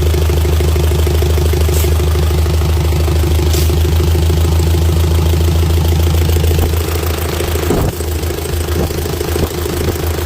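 Diesel engine idling steadily, its level easing and dropping a little about seven seconds in.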